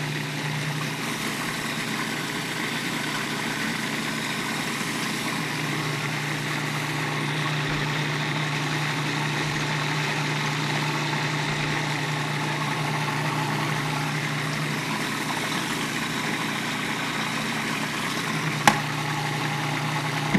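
Electric food processor motor running steadily as oil drips in through the feed tube to emulsify a vinaigrette. A single sharp click comes near the end, and the motor stops at the very end.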